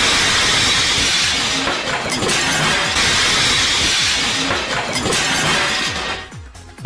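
Loud, distorted crashing and clattering of wooden shelving and household objects falling, with glass breaking. The din drops away sharply about six seconds in, leaving a few separate knocks.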